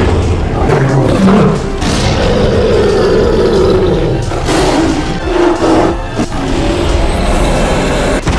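Several lion roars from animated films, one loud roar after another, over background music.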